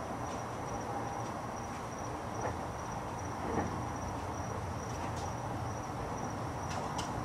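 Crickets chirping in a steady high trill over a low, even background rumble, with a couple of faint clicks.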